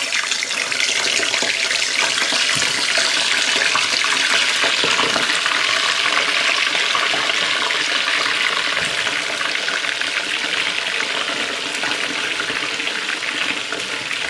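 Potato fries and chicken pieces deep-frying in hot oil: a loud, dense sizzle and crackle of bubbling oil. It builds over the first few seconds and eases slightly toward the end.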